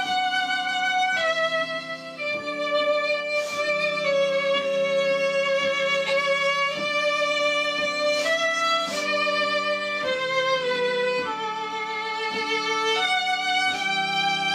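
Slow instrumental background music: a melody of long held notes, some with vibrato, changing every second or two over steady low sustained chords.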